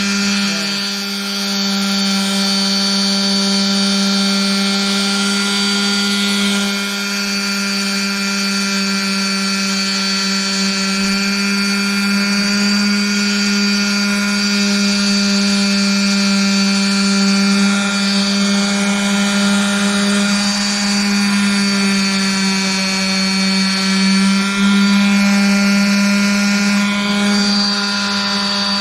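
Electric power sander running steadily, its motor giving a constant hum with only slight changes in load, smoothing a cured WoodEpox filler patch on wood.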